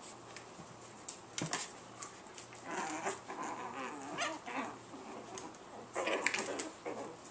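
Chihuahua puppies play-fighting, giving small yips and whines in short bouts, with a few sharp clicks about a second and a half in.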